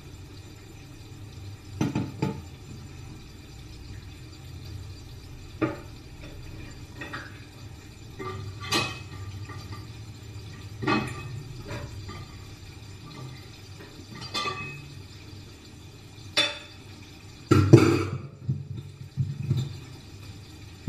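Kitchenware being handled: separate clinks and knocks of dishes and utensils every few seconds, loudest near the end, over a low steady hum.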